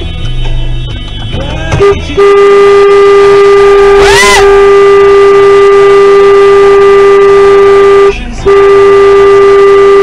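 Car horn sounding: a short toot, then the horn held down for about six seconds, released for a moment and pressed again.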